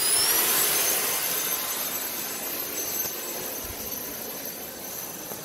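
Electric ducted fan of an RC boat running at full throttle: a steady high-pitched whine over rushing air, loudest at first and fading slowly as the boat moves away.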